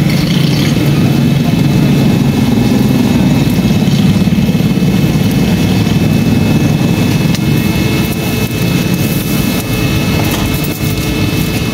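Steady low mechanical drone of a running motor, with a few faint steady high tones above it; it eases a little about two-thirds of the way through.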